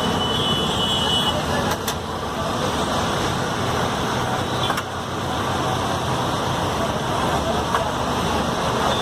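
Steady roadside traffic noise with indistinct voices mixed in, and a couple of sharp clicks.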